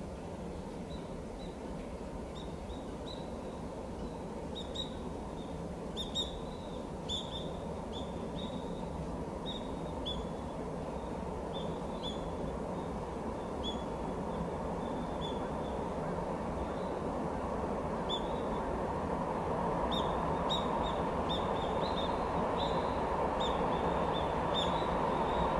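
Freight train approaching through a tunnel: a low rumble that swells steadily louder as it nears. Short high bird calls repeat over it.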